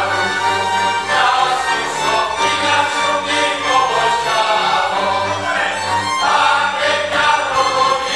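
A men's folk choir singing a folk song together, with a folk string band and double bass accompanying underneath.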